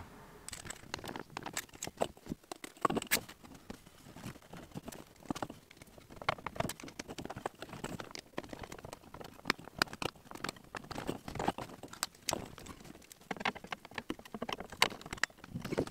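Hose clamps being tightened with a screwdriver and a flexible metal exhaust pipe and air intake hose being handled: irregular small clicks, taps and rattles.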